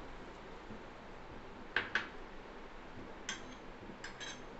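A few light clicks of kitchen utensils over a steady faint hiss of cooking on a gas stove: two close together about two seconds in, one more a little after three seconds, and a quick pair near the end.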